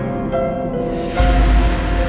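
Film soundtrack music of held notes, with a hissing swell that builds and a deep low hit just over a second in, the loudest moment.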